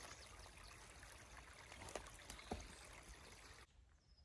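A small woodland stream trickling, with a few footsteps crunching on wet leaves and twigs. About three-quarters of the way through, the water sound cuts off to a much quieter forest background.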